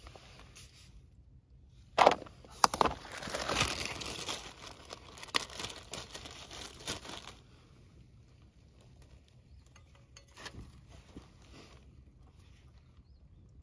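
Rustling and crinkling handling noise with a few sharp knocks about two seconds in; it dies down to faint scattered ticks after about seven seconds.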